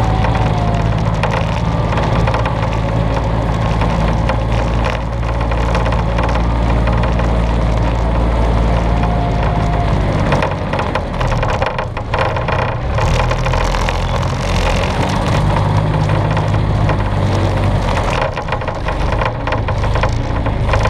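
Small off-road vehicle's engine running steadily as it drives along a rough dirt track, with rattling and crunching from the ride over the ground. The engine note wavers and dips briefly about halfway through, then steadies again.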